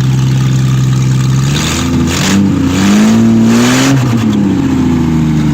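1970 Mercedes-Benz 250 straight-six on freshly rebuilt dual Zenith 35/40 carburettors, running through a short stub exhaust. It idles steadily, is revved up about one and a half seconds in and held there briefly, then drops back to idle about four seconds in.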